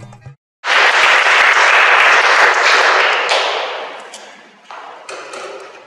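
Audience applauding, loud at first and dying away from about three seconds in, followed by a few scattered knocks.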